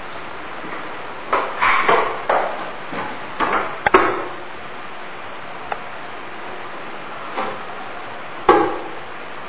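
Toilet flush water running with a steady hiss, broken by about six short ringing clinks and knocks.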